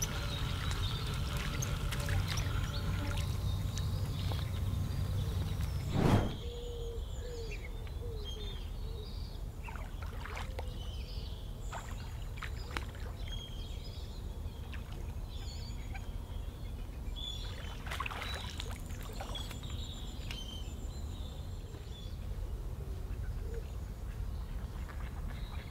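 Birds calling and chirping around the water over a low outdoor rumble, with a steady low hum in the first few seconds and one sudden loud thump about six seconds in.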